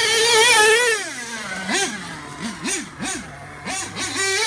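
Nitro RC truggy's Dynamite .28 two-stroke glow engine at high revs, dropping off about a second in, then blipped up and down in several quick short revs and rising again near the end.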